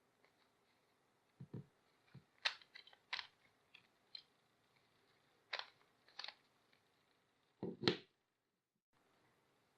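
A Rubik's cube being turned and handled: scattered sharp plastic clicks with a few dull thumps, the loudest clack and thump together near the end.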